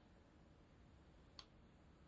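Near silence: room tone, with one faint, short click about one and a half seconds in.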